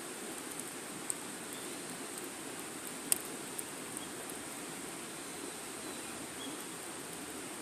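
Small wood fire burning in a fire pit: a steady soft hiss with a few sharp crackling pops, the loudest about three seconds in.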